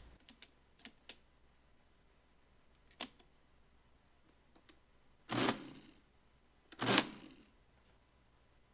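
Friden STW-10 electromechanical calculator being worked through a subtraction: a few light key clicks, a sharp click about three seconds in as a bar is pressed, then two short runs of the machine's mechanism about five and a half and seven seconds in.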